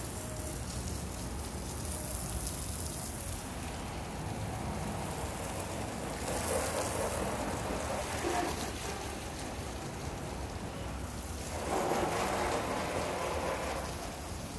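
Water sprayed onto a car's bodywork and glass, a steady hiss and spatter like rain. It grows louder twice, once in the middle and once near the end.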